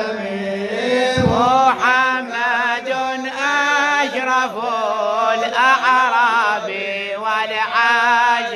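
Men chanting an Arabic mawlid praise song for the Prophet Muhammad, drawn-out sung lines whose pitch wavers and bends in ornamented turns, over a steadily held low note.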